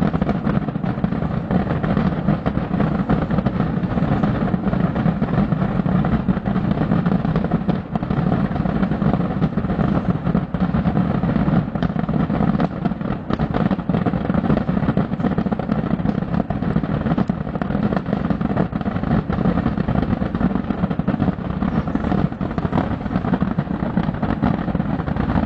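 The Descarga de Cangas pyrotechnic barrage, thousands of rockets and firecrackers going off at once, heard from a distance as one steady, dense crackle and rumble with no break.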